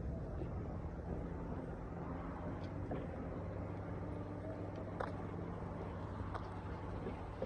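A motor vehicle's engine running steadily, a low hum, with a few faint clicks.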